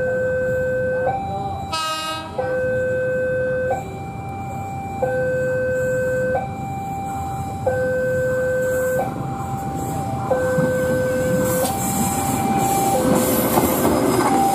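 Level-crossing warning alarm sounding its repeating two-tone signal, a low tone and a higher tone taking turns about every second and a half, as the KAIS 4 inspection train approaches. A brief train horn blast comes about two seconds in, and the rumble of the train passing builds over the last few seconds.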